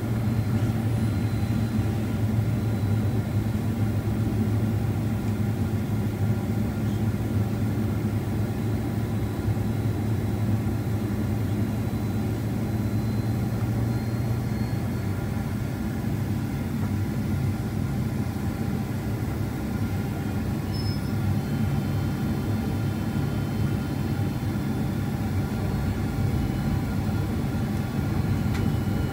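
Cabin noise heard inside a Boeing 767-400ER on approach: the steady low drone of its GE CF6-80C2 turbofan engines under a steady hiss, easing slightly about halfway through.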